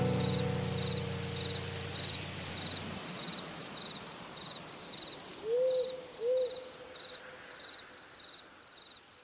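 The last acoustic guitar chord rings out and dies away over the first three seconds. Under it, crickets chirp steadily about twice a second, and an owl hoots twice in the middle, the whole ambience fading out.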